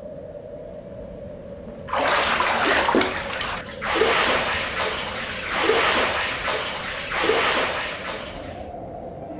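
Bathwater splashing and sloshing as a fully clothed person surges up from under the water in a full bathtub and moves about. It starts suddenly about two seconds in and comes in several surges, with a short break just before the fourth second, then dies away near the end.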